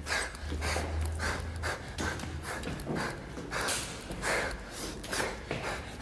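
A man breathing hard and panting, with short noisy breaths in and out repeating about one to two times a second.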